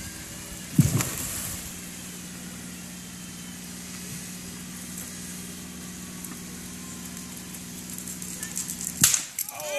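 Shallow creek running over rocks, under a steady low mechanical hum, like an idling engine. A thump about a second in and a sharp knock near the end.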